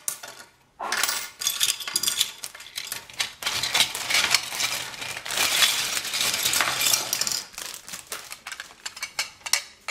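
Clear plastic bag crinkling as a hand rummages through it, with plastic VEX IQ construction parts clattering against each other inside. Near the end it becomes separate clicks and clacks as pieces are moved about.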